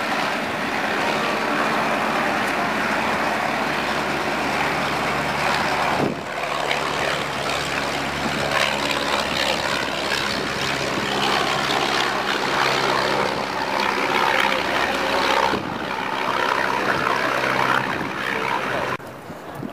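A de Havilland Tiger Moth biplane flying past, its propeller and four-cylinder inline engine running steadily. The sound changes abruptly about six seconds in and again twice near the end.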